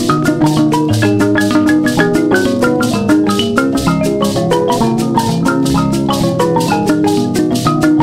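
Instrumental music: quick, short melodic notes over a sustained bass line, with a steady fast percussion beat.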